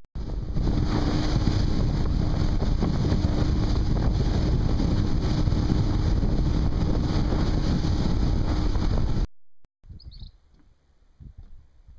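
Motorboat running at speed: a steady engine hum under heavy wind rush on the microphone. It cuts off suddenly about nine seconds in, leaving only faint scattered sounds.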